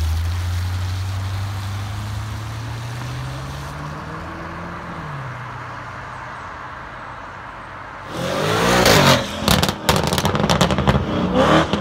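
Audi RS6 Avant's twin-turbo V8 accelerating away, its engine note rising in pitch and then fading. From about eight seconds in, a much louder burst of hard revving with tyre squeal and sharp crackles as an RS6 is driven hard, raising tyre smoke.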